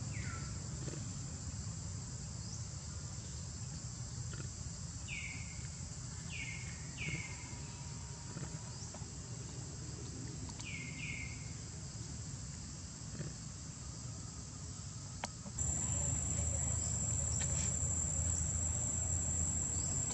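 Steady high-pitched drone of insects, which jumps louder about three-quarters of the way through. A few short falling chirps, mostly in pairs, come in the first half.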